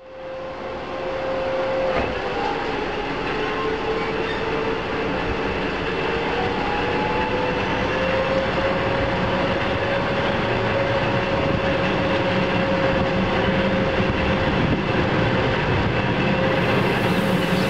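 Passenger train running at speed, heard from a carriage window while passing close alongside a freight train of tank cars: a steady rolling rumble and rattle of wheels and cars, with a high tone that dips a couple of seconds in and slowly rises again. It fades in over the first two seconds.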